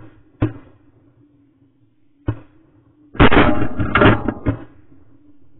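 Geese honking: three single short honks in the first two seconds, then a loud burst of overlapping honks from a flock for about a second and a half.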